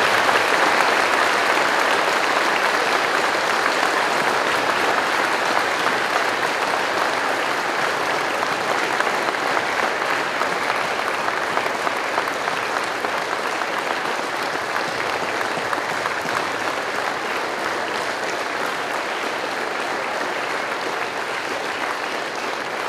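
A large audience applauding in one long round of clapping, loudest at the start and slowly tapering off.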